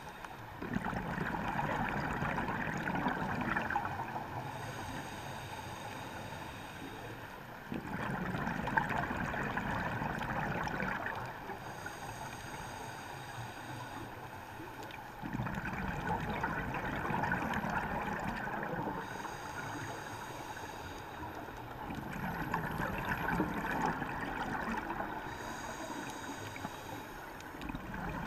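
Scuba diver breathing through a regulator underwater: four long bubbling exhalations, each about three to four seconds, alternating with quieter inhalations with a faint hiss from the demand valve, in a slow, regular cycle.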